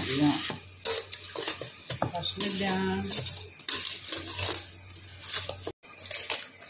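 Steel potato masher pressing and scraping through bananas and sugar in a stainless steel bowl: repeated irregular clinks and scrapes of metal against metal.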